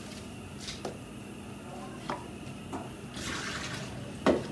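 Kitchen tap running briefly into a plastic cup at a stainless-steel sink near the end, after a few light clicks of plastic kitchenware. A sharp knock, the loudest sound, follows just after the water stops.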